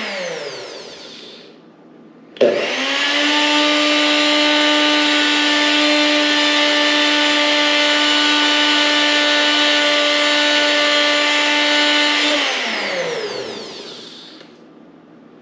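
Personal bullet-style blender grinding granulated sugar into powdered sugar. A short pulse spins down at the start. About two seconds later the motor starts sharply and runs at a steady pitch for about ten seconds, then spins down with a falling pitch.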